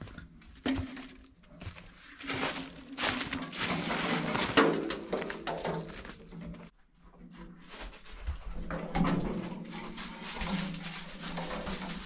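Old wooden planks being pulled out and carried: irregular scraping, rustling and knocks of wood, with footsteps on rubble and straw, in two stretches broken by a brief pause about seven seconds in.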